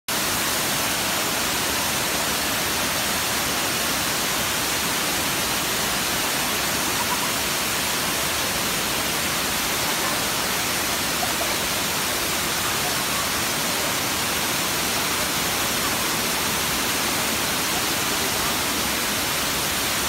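Waterfall of many streams pouring down a cliff face into a rocky plunge pool, a steady, unbroken rush of falling water.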